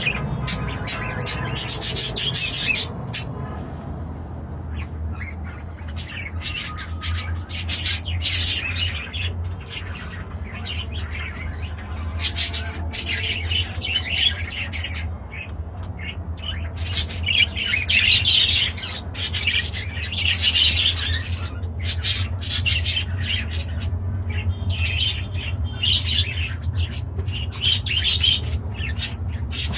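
Parrots chattering with quick chirps and squawks, in dense runs through the whole stretch, over a steady low hum.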